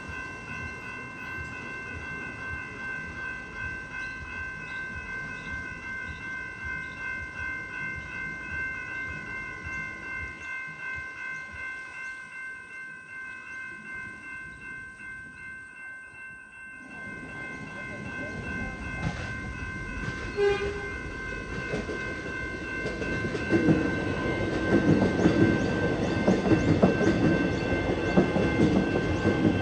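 Level-crossing electronic warning bell ringing steadily. From a little past halfway a suburban train rumbles up and passes the crossing, its wheels clacking over the rail joints and getting loud near the end.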